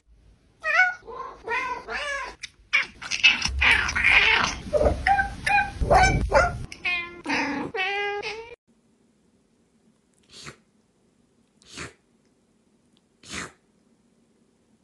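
Several domestic cats meowing one after another, each with a clearly different voice, for about eight seconds; some calls are long and waver in pitch. Near the end come three short, faint noises.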